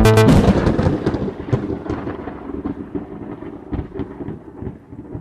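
A thunderclap-like crash that cuts off the electronic intro music, then rumbles with scattered crackles as it fades away over about five seconds.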